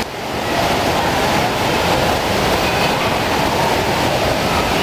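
Steady, echoing roar of an indoor waterpark hall: the constant rush of water from the pools and water features.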